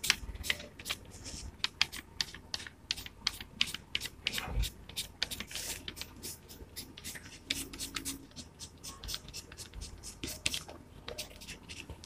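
Light blue crayon scratching on paper in many short, quick strokes, an uneven run of dry scratches as lines are drawn one after another.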